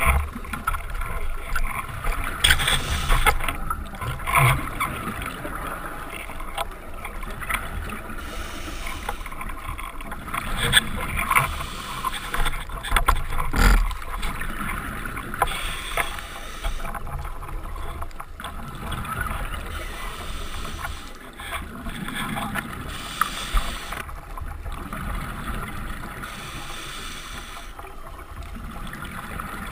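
Underwater sound of scuba breathing: a steady wash of water noise with a burst of bubbling from exhaled breath every few seconds.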